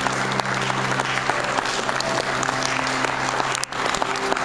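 Audience applauding: dense, steady clapping that dips briefly about three and a half seconds in.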